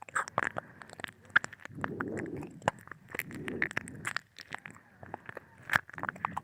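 ASMR ear-licking close to a binaural microphone: wet tongue and lip clicks and smacks coming irregularly, with soft breathy swells in between.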